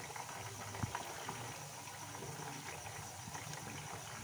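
Coated chicken pieces deep-frying in hot oil in a pan: a steady, fairly quiet sizzle and bubbling, with a light tap about a second in. The pieces have just been turned to brown their second side.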